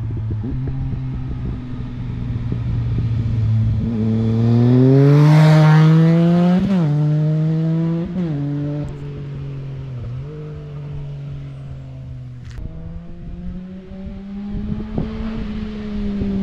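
2011 Triumph Speed Triple 1050's inline three-cylinder engine, through an Arrow 3-in-2 titanium exhaust with the dB killer removed, accelerating hard with rising revs and snapping through two quick upshifts. After a cut it comes in again on a second run at steadier revs.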